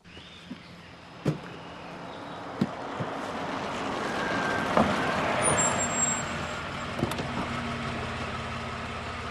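A car drives up, its tyre and engine noise growing to a peak about five seconds in, then settling to a steady idle. Several sharp knocks and clunks of gear being handled sound over it.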